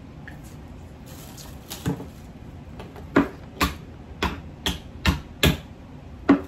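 Close eating and table-handling sounds: a run of about eight sharp clicks and smacks, roughly two a second, starting about two seconds in.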